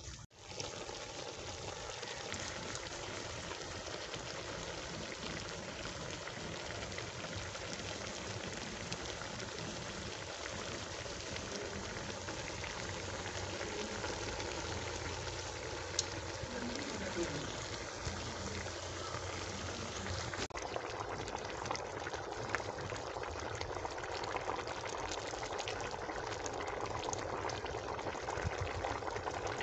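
Chicken karahi curry boiling in an aluminium pot over a wood fire: a steady, dense bubbling, with a couple of faint sharp ticks about halfway through.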